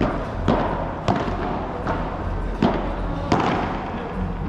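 Padel rally: the ball is hit by rackets and bounces off the court and walls, five sharp hits roughly two-thirds of a second apart.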